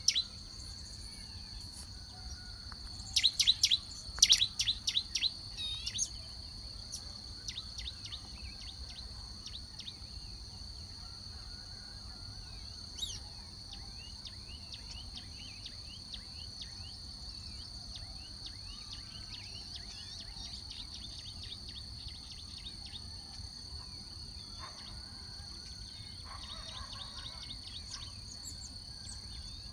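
Wild birds chirping: a loud run of rapid chirps about three to six seconds in, then softer scattered calls, all over a steady high-pitched drone.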